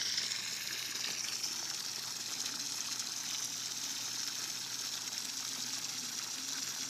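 Steady gushing of water pouring into the water's surface, churning up foam over a manatee's back.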